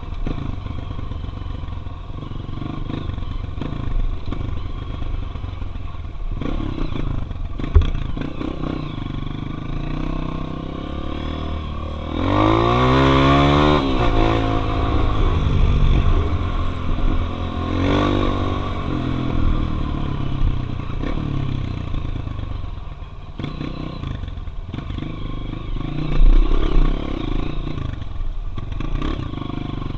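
Honda CRF 230F single-cylinder four-stroke dirt bike engine running on a dirt road, revving up hard about twelve seconds in and again around eighteen seconds before easing back.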